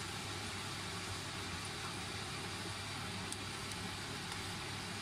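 Steady low hum and hiss, with a few faint ticks from a wooden spatula stirring thick halwa in a nonstick pan.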